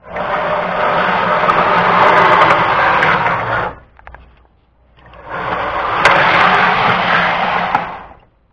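Battery-powered electric motor of a model magnetic-suspension train running in two bursts of about three seconds each, with a short pause between them.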